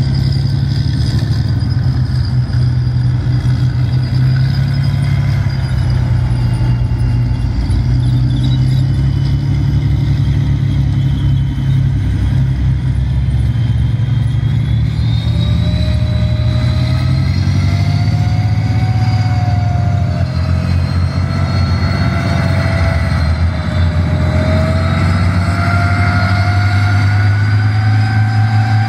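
Tank engines running loud and steady with the rumble of tracks. From about halfway through, a wavering whine rises and falls as a Challenger main battle tank drives past.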